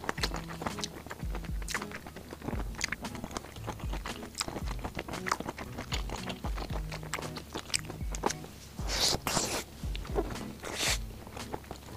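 Crunchy food being bitten and chewed close to the microphone, with sharp crunches throughout and the two loudest bites a little before the end. Background music with a steady low beat plays underneath.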